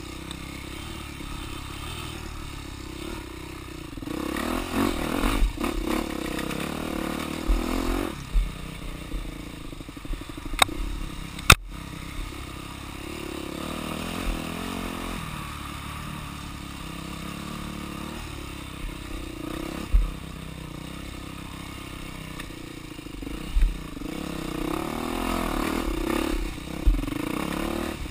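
Yamaha dirt bike engine running along a rough trail, the revs rising and falling over and over. Over it come clattering and several sharp knocks, the loudest a crack a little before halfway.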